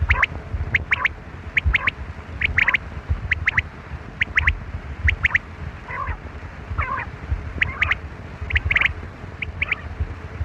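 Quail calling over and over: short, sharp, high notes in quick groups of two or three, repeated about once a second.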